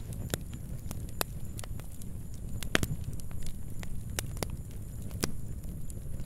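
Fire crackling: irregular sharp pops and snaps over a low, steady rumble, with one louder pop near the middle.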